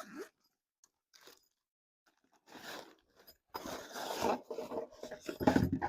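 Packaging being handled and opened during an unboxing: irregular crinkling and scraping bursts that grow longer and louder toward the end.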